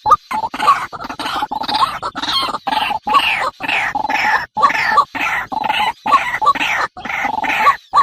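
Birds calling rapidly over one another, a dense run of short repeated chirps and squawks that sweep up and down in pitch.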